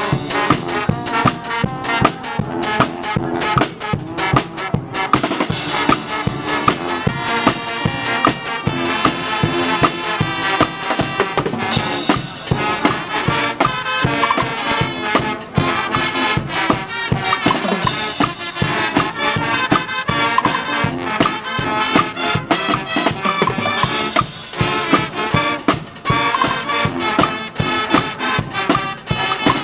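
Guggenmusik band playing: a brass section of trumpets, trombones and sousaphones over a steady drumbeat with bass drum and cymbals.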